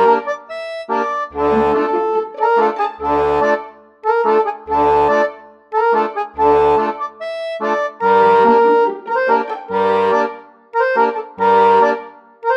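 Background instrumental music: sustained melody notes over low bass notes that come in a regular rhythm.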